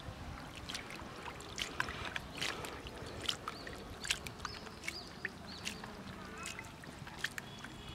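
Hands digging and groping in wet mud and shallow water, giving scattered wet squelches and small clicks at an irregular pace.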